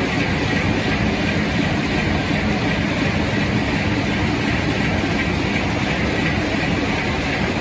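SSINDU SS145 heavy-duty sheet-fed offset printing press running in production: a steady, even mechanical running noise that holds at one level throughout.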